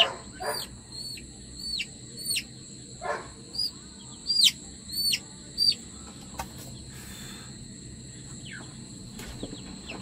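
Young Aseel chick peeping repeatedly while held in the hand for an eye-drop vaccine: short, high peeps that drop in pitch, about two a second. They stop about six seconds in, with a few fainter peeps near the end.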